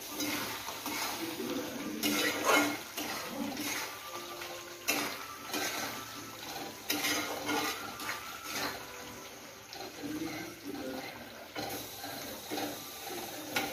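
A spatula stirring thick chicken gravy in a frying pan: wet, sloshing squelches with the spatula now and then knocking and scraping against the pan, in irregular strokes.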